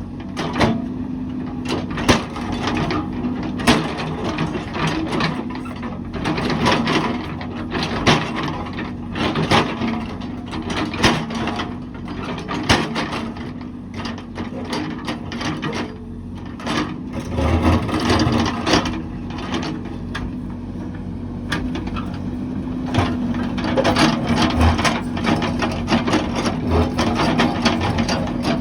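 Heavy construction machine working: a steady engine hum with many irregular clanks and cracks on top, like metal and debris knocking as it digs.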